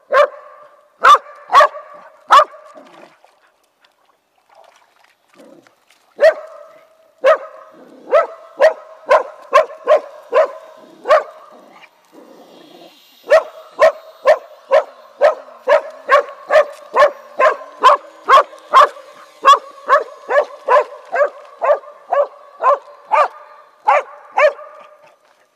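Small dog barking over and over, sharp barks at about two a second in long runs, with short pauses about four seconds and twelve seconds in.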